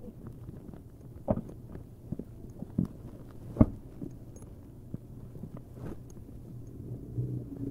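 Close handling noises as leather motorcycle gloves are laid on the seat and sunglasses are handled: soft rustles and a few sharp knocks, the loudest about three and a half seconds in, over a low steady hum.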